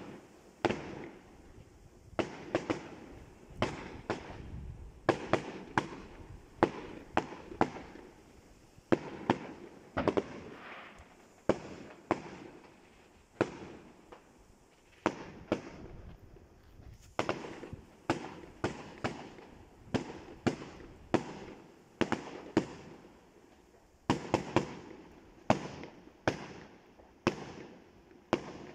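Aerial fireworks bursting overhead: a long run of sharp bangs at an irregular pace, often two or three close together, each trailing off in a brief echo.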